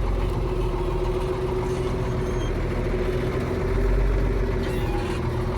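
Ford 9700 tractor's six-cylinder diesel engine running steadily, a low rumble with a steady whine over it.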